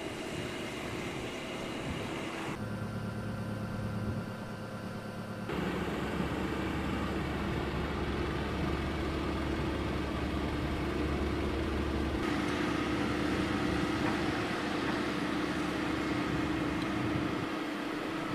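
Diesel engines running steadily, from a truck on the quay and a Komatsu PC120 hydraulic excavator at work. The engine sound changes abruptly about three times.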